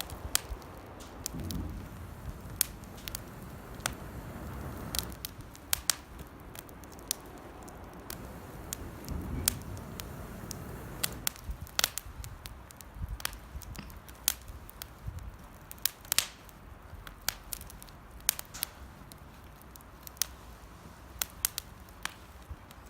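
Campfire of damp firewood crackling and popping, with irregular sharp snaps, several a second at times, from moisture in the wood. A low rumble comes and goes through the first half.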